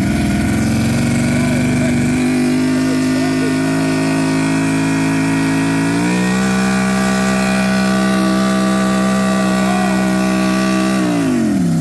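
Force 150 hp two-stroke outboard running hard under load on a marine dynamometer. Its pitch steps up about two seconds in and again around six seconds, holds steady, then falls off near the end as the throttle comes back.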